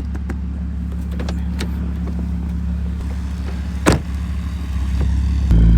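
Car engine idling steadily, with one sharp click about four seconds in. Near the end the engine note steps up louder and deeper.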